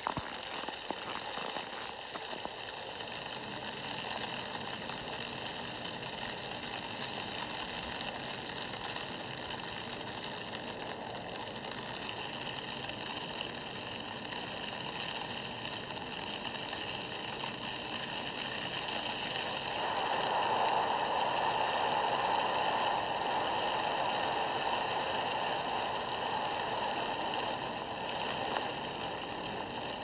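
A steady rushing hiss, like rushing air or water. About twenty seconds in, a lower rushing layer joins it.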